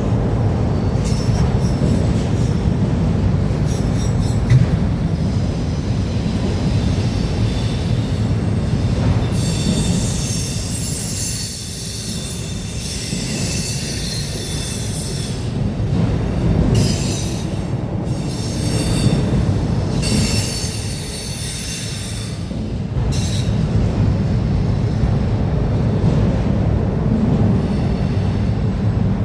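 Freight train rolling past with a steady low rumble of cars on the rails. From about nine seconds in until about twenty-three seconds in, the wheels give off a high, ringing squeal against the rails.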